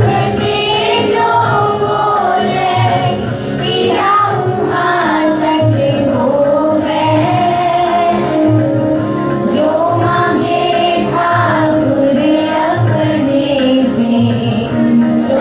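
Group singing a Sikh shabad, a devotional hymn, with instrumental accompaniment over a steady beat.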